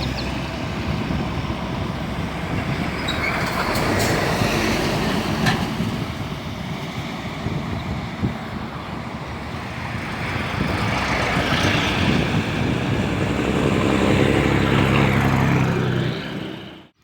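Single-cylinder engine of a 150cc Honda Bros motorcycle running at road speed, under heavy wind rush, cutting off abruptly near the end.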